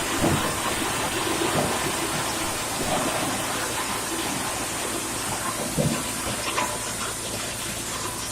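Drum wood chipper running under load, chipping waste piano wood: a steady loud noise with irregular cracks and knocks as the wood is broken up.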